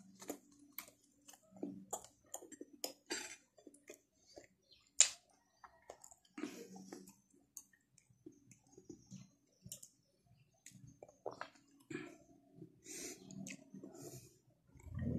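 Faint eating sounds: chewing pancit canton noodles and monay bread, with scattered small mouth clicks and smacks, one sharper click about five seconds in.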